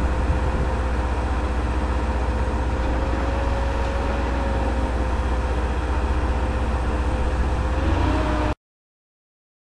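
Truck-mounted rotary drilling rig running steadily, a deep engine drone with a steady whine above it that rises slightly in pitch near the end. The sound cuts off abruptly about a second before the end.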